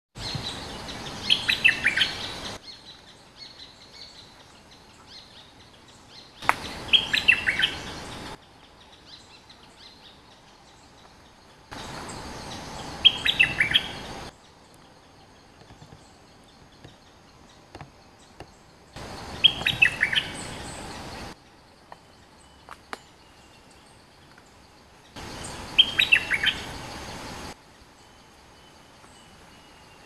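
Merbah lekir bulbul singing: a short, quick phrase of several bright notes, repeated five times about every six seconds.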